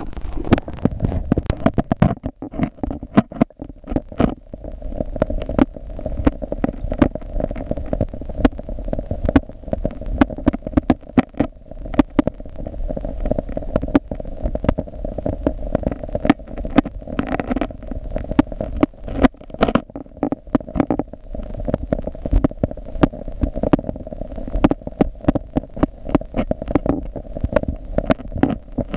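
Rain heard from under a lake's surface: a dense, irregular patter of sharp ticks as drops strike the water overhead, over a steady low hum.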